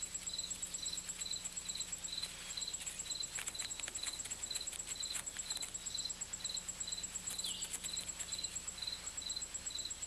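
Insect chorus: a steady high trill with a chirp repeating about twice a second, broken by scattered faint ticks and rustles.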